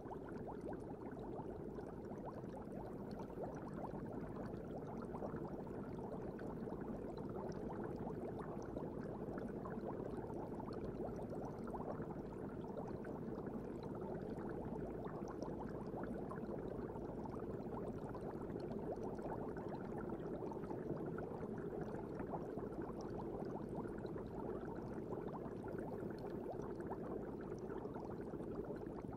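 Aquarium ambience heard from inside the tank: a steady, muffled bubbling hiss of water and air.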